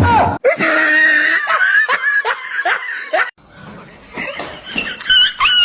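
A person laughing hard, a quick run of falling 'ha' sounds about three a second, which stops abruptly about three seconds in. Near the end a high-pitched, wavering animal whine starts.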